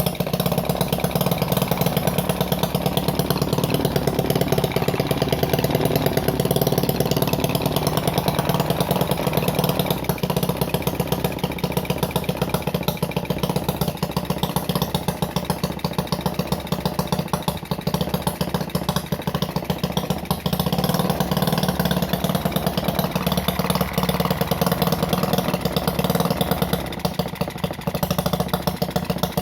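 Homemade mini four-stroke engine built from a refrigerator compressor, running steadily with a fast, even firing beat.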